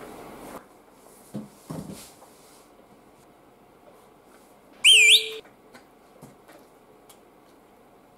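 A short, loud whistle about five seconds in, lasting half a second, its pitch dipping and rising over a steady lower tone. Around it are faint chewing and chopstick noises from a meal of fried oysters.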